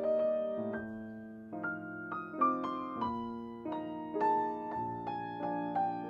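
Background piano music: a slow melody of single notes over sustained chords.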